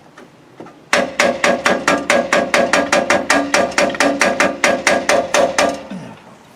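Rapid metal-on-metal tapping, about six strikes a second with a ringing note, knocking the lock-barrel stud out of a Land Rover Defender door handle. It starts about a second in and stops just before the end.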